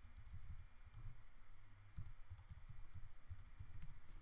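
Faint, irregular computer-keyboard keystrokes: typing to correct a file path in a command.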